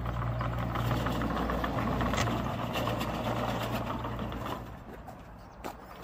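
Petrol engine of a remote-controlled tracked lawn mower running steadily with a rapid, even chatter as the machine drives on concrete. It gets quieter about four and a half seconds in, and there is a single sharp click near the end.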